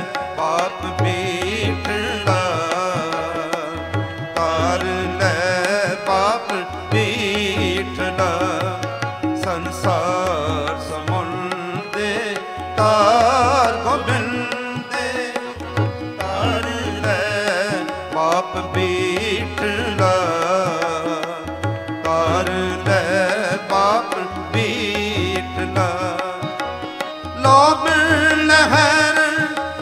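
Live Sikh Gurbani kirtan music: tabla keeping a steady beat under a harmonium melody and a wavering sung line.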